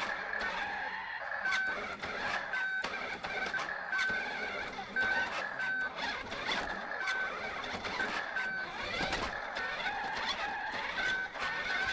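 Radio-controlled toy car running, its small electric motor and gears whining, with the pitch sliding up and down as it speeds up and slows. Irregular sharp clicks and knocks come from the car running over the floor.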